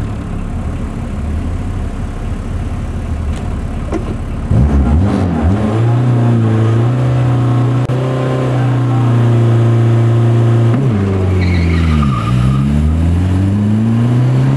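Car engine under hard acceleration: a rough low rumble at first, then about four and a half seconds in it revs up into a steady high drone. Near eleven seconds in its pitch drops and climbs again.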